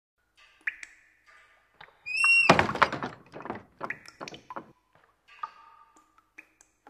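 A run of knocks and clicks: a short rising squeak about two seconds in, then a loud clattering thud, followed by several lighter knocks.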